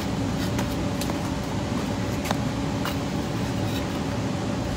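Bricks being stacked onto a toy wheel loader: a handful of sharp clicks of brick set on brick, over a steady low hum.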